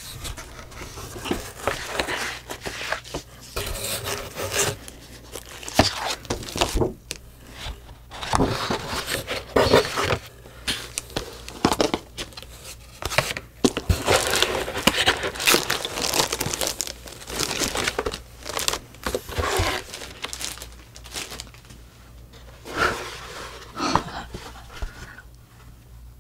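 Clear plastic sleeve crinkling and rustling in irregular bursts as hands pull a plaque out of it and handle a cardboard box, with a few sharp knocks.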